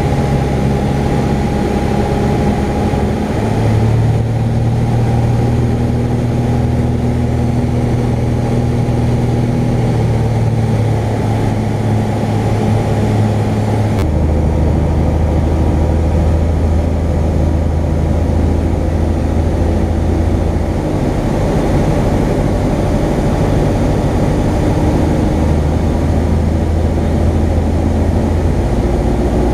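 Engine and propeller of a Jabiru light aircraft in flight, heard from inside the cockpit: a loud, steady drone whose low note shifts up or down a few times.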